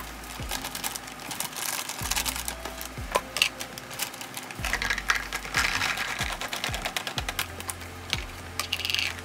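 A plastic pouch of peeled garlic crinkling as it is handled, and garlic cloves clicking and clattering as they are tipped into a plastic bowl. The sound is a dense run of sharp clicks, thickest a little past halfway. Background music with a steady beat plays underneath.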